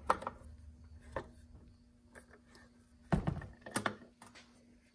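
Screwdriver backing screws out of a car amplifier's metal top cover: faint clicks and scrapes, with a cluster of louder short knocks about three seconds in.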